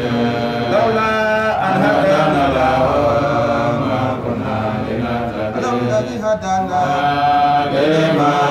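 A man's voice chanting a melodic Islamic religious recitation, gliding between notes and holding some of them long.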